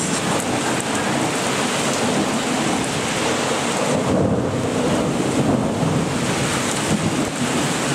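Torrential rain pouring steadily in a heavy thunderstorm, with thunder rumbling low through the middle.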